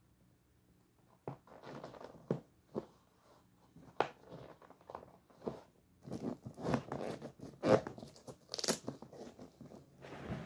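Close handling noise from lacing up an ice skate: laces rubbing and tugging through the eyelets, with irregular clicks and knocks. It starts about a second in and gets busier and louder from about halfway.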